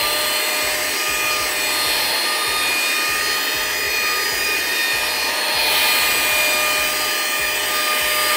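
Cordless handheld mini vacuum running with a steady whine and rushing air as its nozzle is pushed across a tabletop, sucking up bread crumbs.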